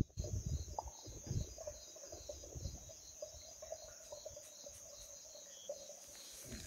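Water falling and splashing into a well, with irregular splashes strongest in the first second and a half. Steady insect chirping runs under it.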